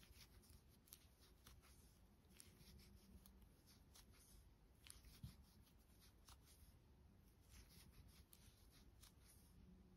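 Near silence, with faint scattered ticks and rustles from a metal crochet hook working aran yarn into single crochet stitches.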